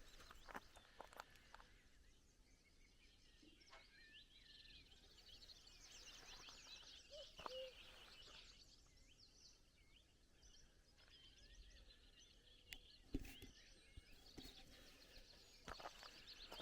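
Faint countryside birdsong, many small birds chirping and trilling, with a common cuckoo's low two-note call about halfway through. A single sharp click comes near the end.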